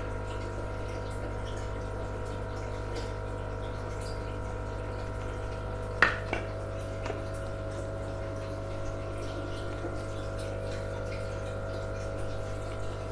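Aquarium filter pump running steadily: a constant hum with water trickling, and one short knock about six seconds in.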